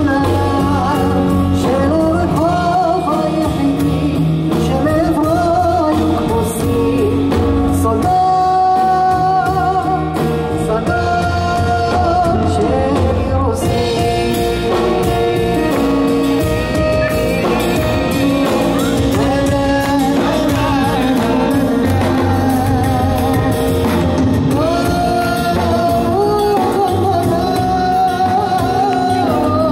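Live band music: a male vocalist sings a melody with vibrato over a Roland RD-300NX digital stage piano and an upright double bass, amplified through a PA.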